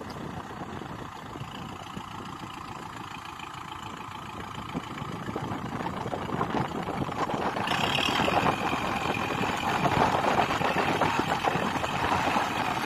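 Kubota MU4501 4WD tractor's four-cylinder diesel engine running under load as the tractor climbs out of a muddy canal. It gets louder from about halfway through.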